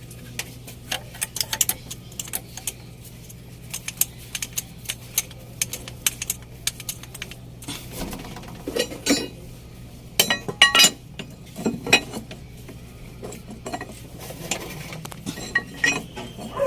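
Metal hand tools and parts clinking and tapping in irregular short strikes while work is done on a truck engine, busiest about halfway through, over a steady low hum.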